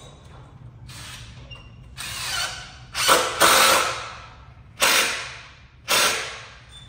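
Cordless drill run in about five short bursts, each starting sharply and tailing off, with a fainter burst near the start.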